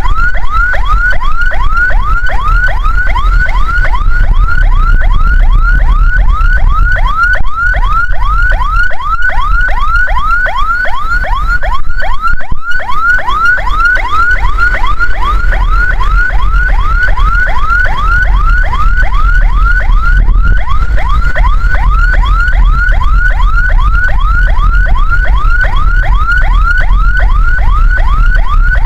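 Ambulance siren on a fast yelp: rapid rising whoops repeating about three times a second without a break, loud, over a low rumble.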